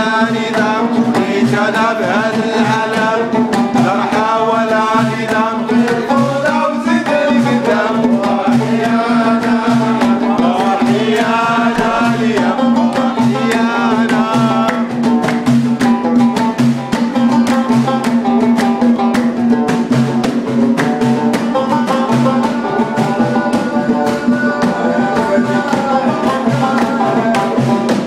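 Live Moroccan ghiwani folk song: a banjo played to a steady, even beat with a man singing over it, the voice strongest in the first half.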